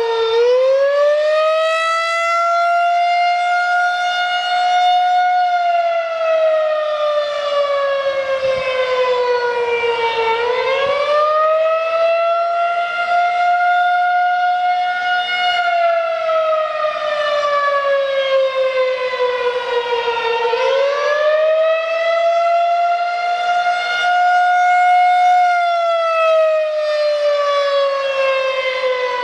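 Federal Signal 2001-SRNB outdoor warning siren sounding a test wail. Its pitch rises quickly, holds, then slowly falls, repeating about every ten seconds, three times.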